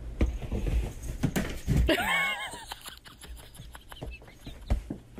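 A domestic cat gives one short, wavering meow-like call about two seconds in. Soft thumps and rustling come before it.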